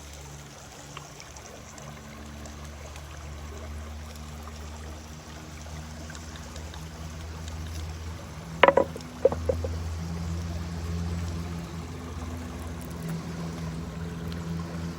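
Steady flowing river water. A quick cluster of three or four sharp knocks or clinks comes a little past halfway through.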